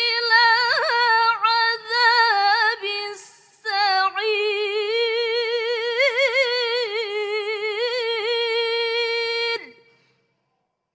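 A teenage girl reciting the Quran in the melodic mujawwad tilawah style, holding long ornamented notes with rapid pitch wavers. She pauses for a quick breath about three seconds in, then sings on to close the phrase with a falling glide near the end.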